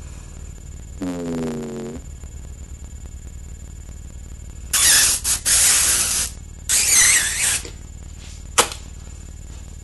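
A person's voice slides down in pitch about a second in, followed by two breathy hissing bursts close to the microphone and a short click near the end. A steady low electrical hum runs underneath.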